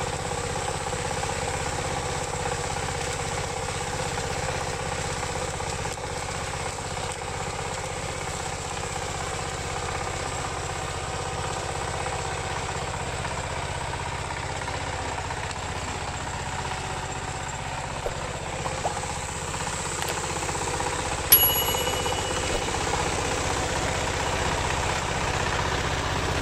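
Single-cylinder Dongfeng diesel engine of a two-wheel paddy tractor running steadily. A single sharp metallic clank rings out about 21 seconds in.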